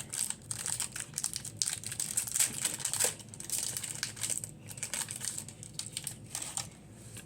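Foil booster-pack wrapper of a Pokémon trading card pack crinkling in the hands as it is opened, a dense run of irregular crackles that dies down near the end.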